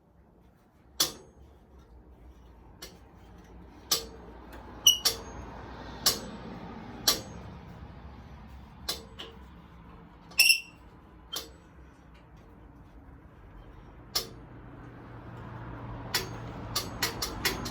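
Scattered sharp metallic clanks and clinks of tools and parts being handled, a dozen or so spread out, a few with a brief ringing tone. A low rumble builds toward the end.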